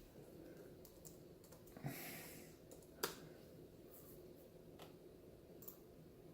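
Near silence broken by a few faint, isolated computer clicks, the sharpest about three seconds in, with a soft breath-like hiss about two seconds in.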